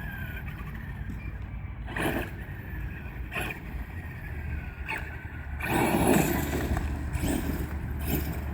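Radio-controlled truck running over dirt. A faint motor whine falls in pitch in the first second or so, a few short knocks follow, and from about two-thirds in a louder rough churning of tyres through dirt.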